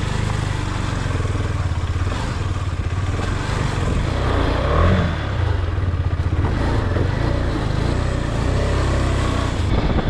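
Motorcycle engine running as the bike is ridden over a rocky dirt trail, the revs shifting throughout with a brief rise and drop about halfway through.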